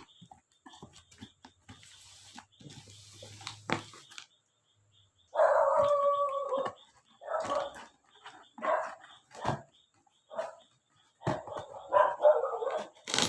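A dog barking repeatedly: one long, drawn-out bark about five seconds in, then a string of short barks. Soft rustling and clicks come before it.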